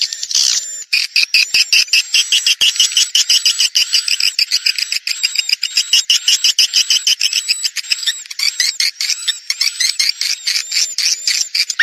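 Swiftlet lure call: dense, rapid chittering of swiftlets, many short chirps a second in a continuous twittering stream, with a brief break about a second in. It is the kind of call played to draw swiftlets into a nesting house.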